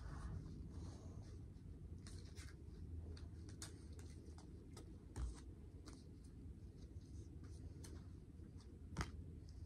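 Faint rustling and light clicking of a stack of Topps 2023 baseball cards being thumbed through by hand, with a sharper tap near the end.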